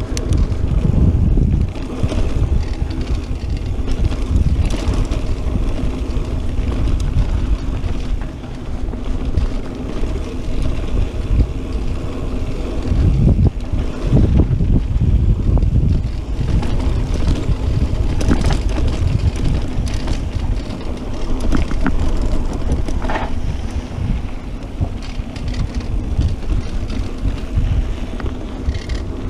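Mountain bike rolling fast down a dirt singletrack: knobby tyres rumbling and the bike rattling over bumps, with wind buffeting the action camera's microphone throughout.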